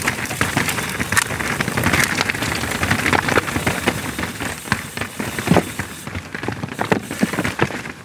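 Mountain bike rolling over a rocky, stony trail: a steady rough crunching of tyres on loose stones, dotted with many sharp clicks and knocks from the rocks and the rattling bike.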